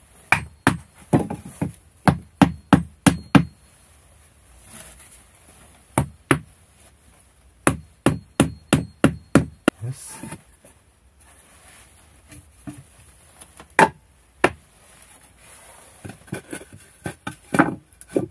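Sharp knocks on wood as short boards and joists are knocked into place in a small pit floor. The knocks come in quick runs of several strikes, about four a second, with single knocks between.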